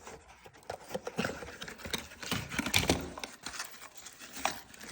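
Hands rummaging through a small product box and its packaging: irregular light knocks and clicks with rustling of cardboard and plastic.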